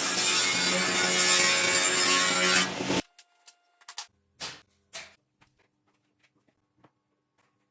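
Power saw cutting wood, a loud steady whine that cuts off abruptly about three seconds in. It is followed by a few light knocks of wood being handled.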